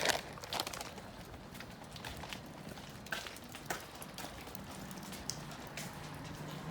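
Rain dripping and tapping in scattered, irregular taps over a light hiss, with a faint steady low hum near the end.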